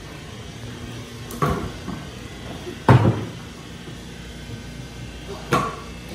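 Stunt scooter doing tricks on concrete: three sharp clacks of the deck and wheels landing, about a second and a half apart, the loudest near the middle.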